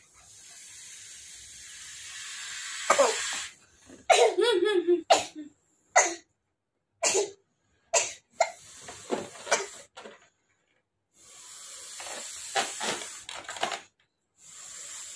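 A rubber balloon being blown up by mouth: long breathy hisses of air blown into it, one at the start and another near the end. In between come several short puffs and breaths.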